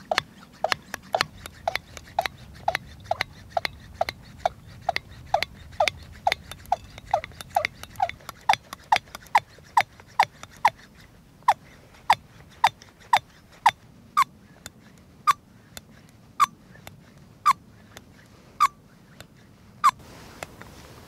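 Hand pump on a SOTO Stormbreaker multi-fuel stove's fuel bottle being pumped to pressurise the bottle, each plunger stroke giving a short squeak. The strokes come a little over two a second at first, then slow to about one a second as the squeaks rise in pitch, and stop near the end.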